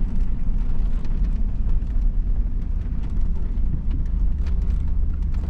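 A vehicle's engine running steadily with a low rumble while moving over rough ground, with light rattles and knocks.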